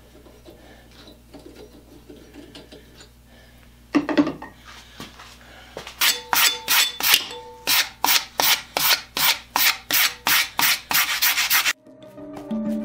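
A hand file rasping back and forth on steel in even strokes, about two a second, after a single louder scrape. Near the end it cuts off and background music starts.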